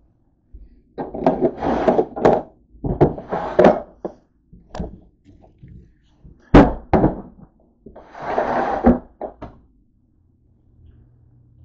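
Handling noise from a camera being carried and moved around: rubbing and scraping against it, mixed with irregular knocks and thunks. The sharpest knock comes about six and a half seconds in.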